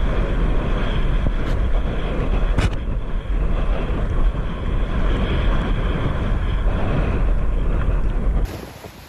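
Heavy wind buffeting on an action camera's microphone over rushing water during a pump foil ride. It drops off suddenly near the end.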